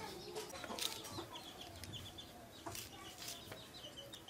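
Birds calling: low, gliding calls, then a run of quick, repeated high chirps through the second half.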